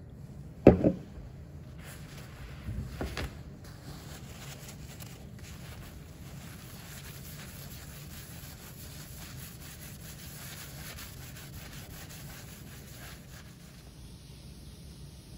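A cloth rubbing turpentine over a metal etching plate to wipe off the ground, a steady scrubbing. A sharp double knock comes about a second in, and a few softer knocks come around three seconds in.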